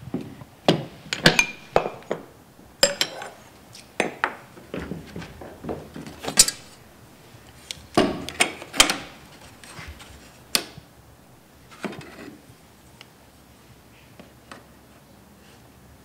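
Scissor pipe bender being worked on copper pipe: irregular metallic clicks, clanks and knocks as the bender's guide bar, handles and the pipe strike each other. The knocks come thick and fast at first and thin out after about twelve seconds.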